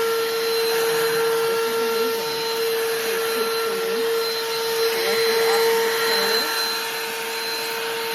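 BLACK+DECKER 20-volt dustbuster cordless handheld vacuum running steadily: a loud motor whine with a rushing hiss of air.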